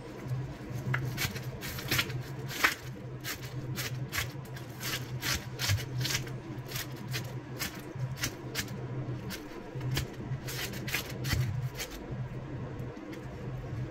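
Chef's knife chopping a red onion on a wooden cutting board: a quick, uneven run of sharp knocks, about two to three a second, that stops about twelve seconds in. A steady low hum runs underneath.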